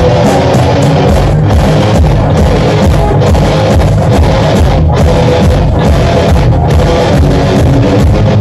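A rock band playing live: electric guitar, bass guitar and drum kit, loud and dense throughout.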